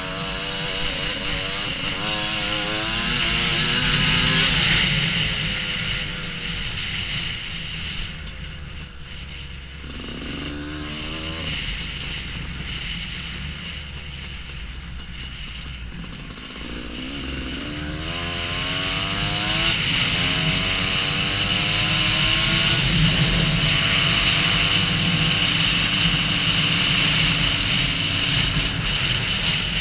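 Husqvarna WR250 two-stroke enduro motorcycle accelerating off-road. The engine revs up through the gears, each gear a rising pitch, over the first few seconds, then eases off. It gives a short burst around ten seconds, pulls up through the gears again after about seventeen seconds and then holds a steady high pitch.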